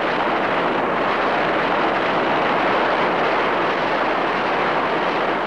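Steady rushing sound effect of a giant ocean wave crashing, a dense, even wash of water noise with no pitch.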